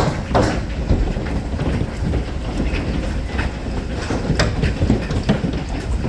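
Large hailstones pelting down with rain, a dense steady roar of impacts broken by frequent sharper cracks of individual stones striking hard surfaces.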